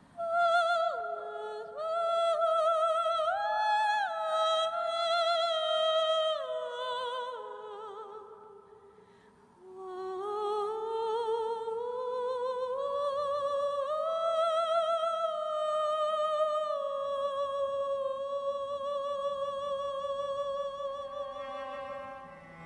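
A woman's solo soprano voice singing an unaccompanied, wordless vocalise with wide vibrato. A first phrase of held notes steps up and then falls away. After a short breath about ten seconds in, a long line climbs slowly and is held.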